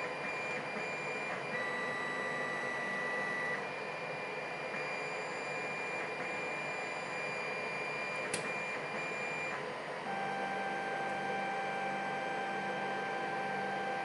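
A steady hiss with several faint steady tones that shift pitch a few times, like a small machine running. One small sharp click a little past halfway, from the pick working in the lock cylinder.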